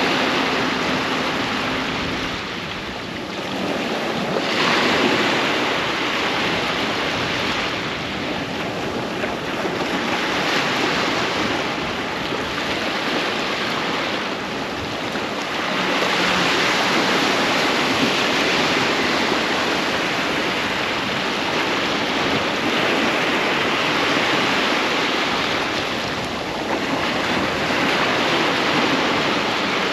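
Ocean surf breaking and washing up a sandy beach: a continuous rushing wash that swells louder every several seconds as each wave comes in.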